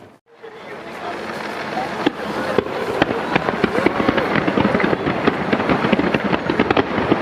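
Fireworks display: after a brief cut near the start, shells begin bursting about two seconds in and build into a rapid, dense run of bangs and crackles.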